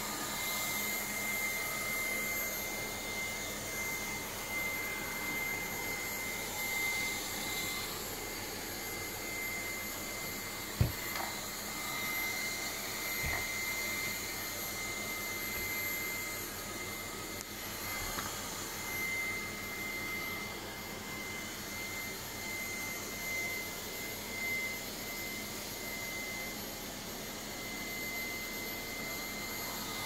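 Lefant robot vacuum cleaner running: a steady whir of its motor and brushes with a constant high whine. There is one sharp knock about eleven seconds in and a few fainter ones.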